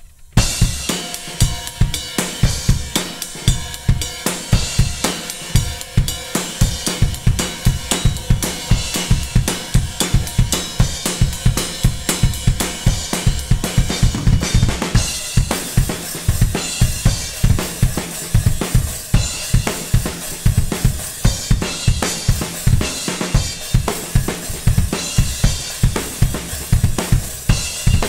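Drum kit played at a fast, steady beat: dense bass-drum hits with snare and cymbals over them.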